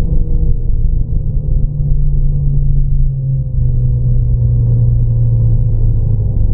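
Ford Fiesta ST's Pumaspeed Stage 4 tuned, turbocharged 1.6 EcoBoost four-cylinder heard from inside the cabin, running steadily as a deep drone whose pitch sinks slowly.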